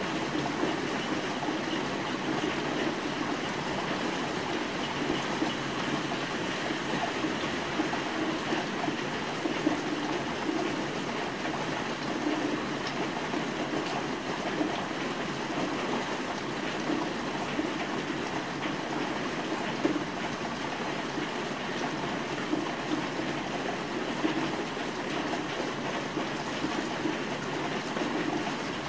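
Steady rain falling outside, an even wash of patter and running water, with a few sharper taps standing out.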